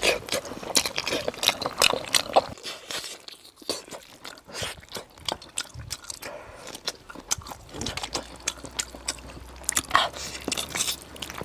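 Close-miked mouth sounds of someone gnawing and chewing a soft-stewed braised donkey hoof, with many short clicks of lips and teeth.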